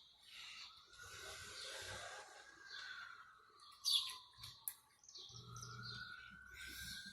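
Birds chirping in the background with short high calls, over a faint long tone that slowly dips and rises. A single sharp click about four seconds in.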